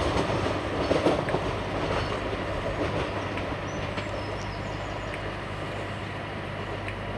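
LNER passenger train running past: a steady rush of wheel and rail noise with a few sharp clicks, fading gradually as it moves away.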